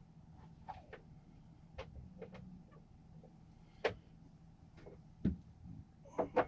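Scattered light clicks and taps over a faint low hum, with sharper knocks about four and five seconds in and two more close together near the end.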